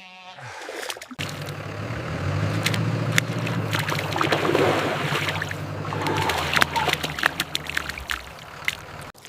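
A motor running steadily at a low pitch for about seven seconds, with wet mud and water splashing and sloshing around it.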